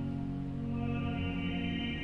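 Slow music of steady sustained chords, with the harmony shifting and higher notes entering about a third of the way in, typical of a pipe organ in a cathedral.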